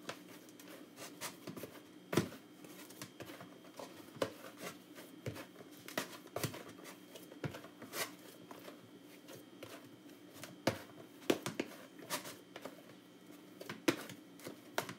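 Hands kneading flour dough in a plastic tub: irregular soft knocks, slaps and rubbing as the dough is pressed and turned.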